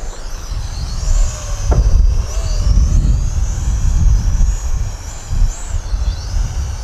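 Heavy wind buffeting the microphone, with the thin, high whine of a small brushed quadcopter's motors (Tianqu XS809W) wavering up and down as it is flown hard into gusts.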